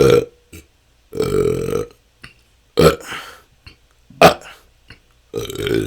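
A person burping naturally, about five or six belches in a row with short gaps between them. One is drawn out for most of a second, and a sharp, loudest burp comes a little past the middle.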